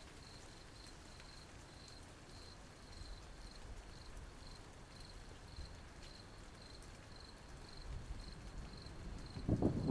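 A cricket chirping steadily, about two to three high chirps a second, over a faint low rumbling background. Near the end a loud low rumble of thunder comes in.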